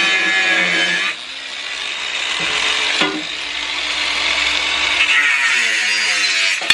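Angle grinder cutting a metal bar, its motor whine dropping as the disc bites, then building back up. The grinder cuts off suddenly near the end.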